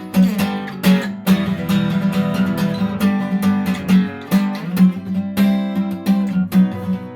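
Acoustic guitar strumming chords in a steady rhythm, with a low note ringing out on the stronger strokes and no singing.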